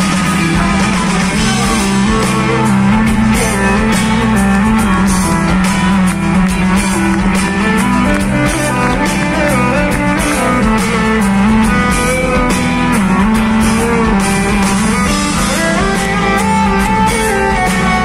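Live band playing an instrumental passage of a pop-rock ballad, guitar to the fore over steady drums, with no singing.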